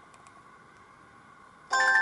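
Sony Ericsson K200i mobile phone ringtone: after a few faint clicks over a low hiss, a short polyphonic ringtone phrase of several notes at once starts suddenly near the end and cuts off soon after.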